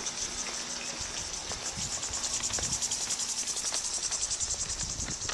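Insects chirring steadily: a high, rapidly pulsing buzz, with a few soft low thumps beneath it.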